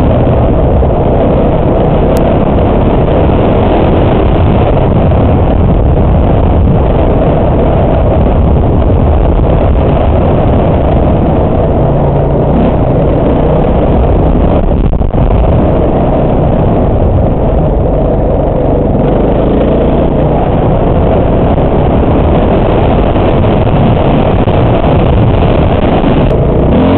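Dirt bike engine running and revving while being ridden, loud and continuous, mixed with wind rushing over the bike-mounted camera's microphone.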